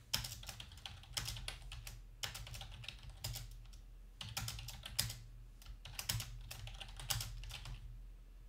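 Typing on a computer keyboard: fairly faint key clicks in short, irregular runs with brief pauses between them.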